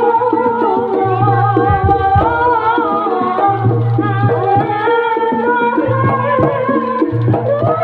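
Live jaranan gamelan music: kendang hand drums beat a busy rhythm with recurring deep low notes, under a wavering, sustained melody line.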